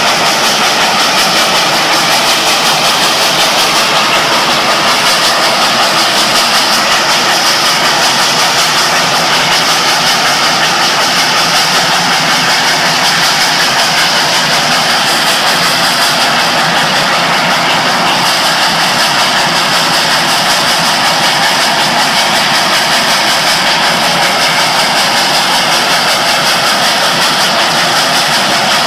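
Steady road and wind noise of a car moving at speed, heard from inside the car.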